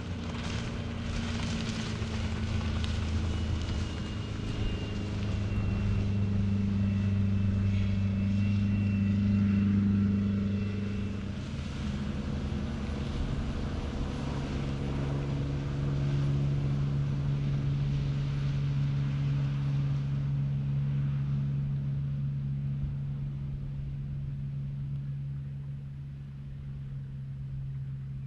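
Engine drone of a fast workboat running at speed, with the rush of its hull and wake through the water and a faint high whine that slides slightly downward. About eleven seconds in the sound changes to another boat's engine at a different steady pitch, which fades slightly toward the end.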